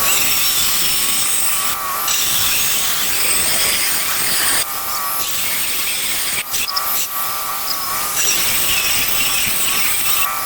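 A handheld power tool with a blade scoring and cutting into patio tile: a steady motor whine over gritty grinding, dipping briefly a few times as the blade is shifted or lifted.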